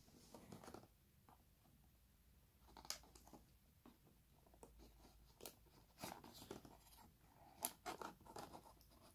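Faint scraping and ticking of a kitchen knife blade slitting the seals on a cardboard processor box, with the box shifted in the hands between cuts; a few sharper ticks come about 3, 5.5, 6 and 8 seconds in.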